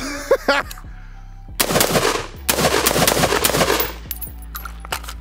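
Budget AR pistol fired as a mag dump: a fast string of shots starting about a second and a half in and lasting around two and a half seconds, with a brief break partway.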